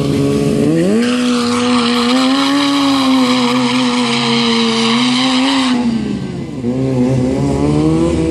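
Sportbike engine revving up sharply and holding at high revs for several seconds, with a hissy edge on top. It then drops off briefly and picks back up.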